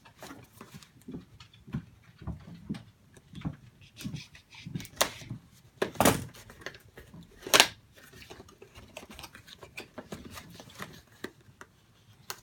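Cardboard product box being cut open and unpacked by hand: scattered rustles, scrapes and small knocks, with three louder sharp sounds in the middle.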